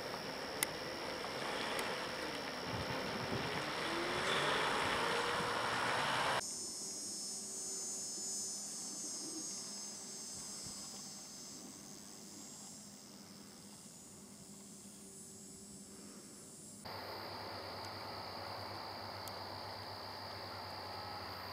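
A loaded logging truck's engine running as it pulls away, getting louder over the first few seconds before stopping abruptly about six seconds in. Faint outdoor hiss follows, and near the end a steady high-pitched insect drone, like crickets, with a low hum under it.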